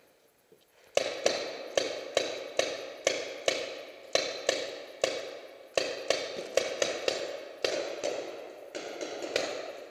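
Paintball marker firing repeatedly, about three sharp shots a second, starting about a second in. Each shot echoes in the large warehouse hall.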